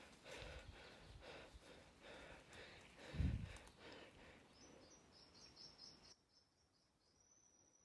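Irregular clicks and knocks of handling or movement, with one dull thump about three seconds in. The sound drops off abruptly after about six seconds, leaving faint high-pitched chirping.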